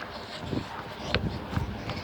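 A string of irregular thumps and knocks, several a second, with no voices.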